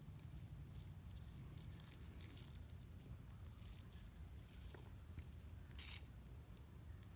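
Faint rustling and crackling in dry leaf litter over a low steady rumble, with one brief louder rustle about six seconds in.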